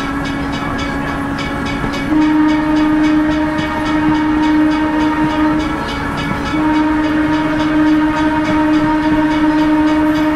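Horn of the Lancaster, Oxford & Southern self-propelled motorcar no. 10 sounding for a road grade crossing: a long blast beginning about two seconds in, a short break, then a second long blast. Under it is the steady drone of the running motorcar.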